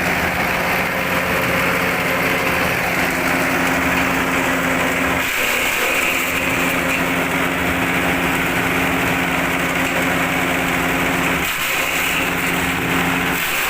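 Forage chopping machine running steadily with a continuous mechanical hum; the low hum briefly dips about five seconds in and again near the end.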